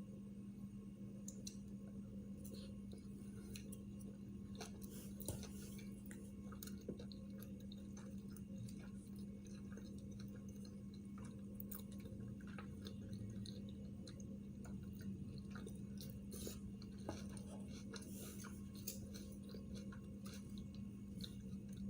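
A person chewing sushi rolls close to the microphone, with many small, irregular wet mouth clicks, over a steady low hum.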